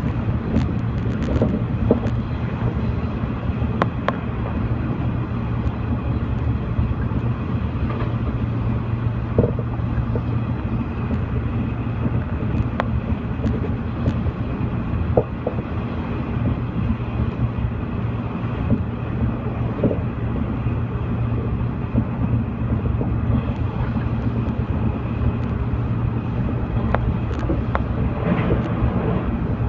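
Local electric train running along the line, heard from inside the carriage: a steady low rumble of wheels on rails, with scattered short knocks and clicks.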